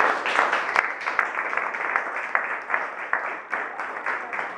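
A small seated audience applauding: many people clapping together steadily, easing off slightly toward the end.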